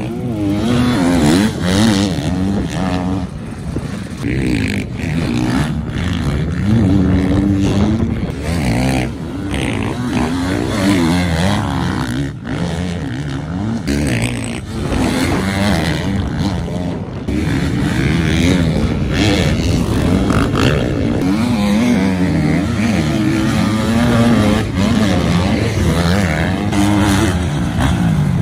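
Motocross bike engine revving hard, its pitch rising and falling over and over as the rider accelerates, shifts and backs off through the sand.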